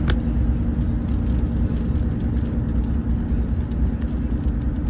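Motor vehicle running steadily: a low rumble with a constant droning hum.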